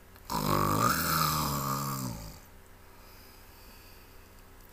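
A single loud snore lasting about two seconds, dropping in pitch as it goes.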